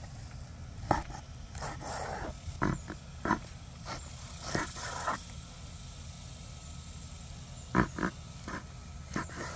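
A long slicing knife sawing through a rack of smoked pork spare ribs between the bones, in short rasping strokes, with several sharp taps as the blade meets the wooden cutting board. A steady low rumble runs underneath.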